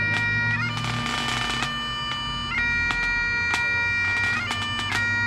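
Great Highland bagpipes playing a tune: held melody notes change pitch every second or so over steady drones, with quick grace notes flicked between the notes.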